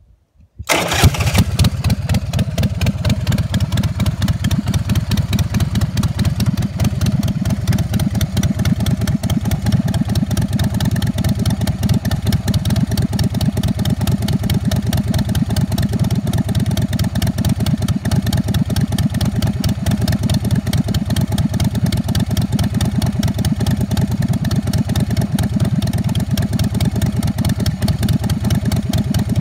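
A 2008 Big Dog Pitbull chopper's 117 cubic inch S&S V-twin fires up on the electric starter about a second in. It then idles steadily.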